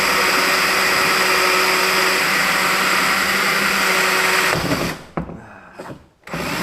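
Power drill boring a hole through a plastic kayak deck, running at a steady speed, then stopping about four and a half seconds in. A couple of short knocks follow, and the drill starts again near the end.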